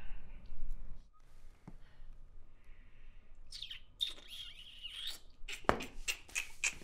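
A person whistling a wavering high note for about a second and a half, followed by a few short sharp sounds near the end.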